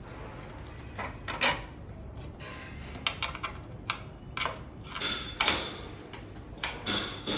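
Scattered handling knocks and clicks, about eight spread irregularly, the loudest about one and a half and five and a half seconds in, over a steady low hum.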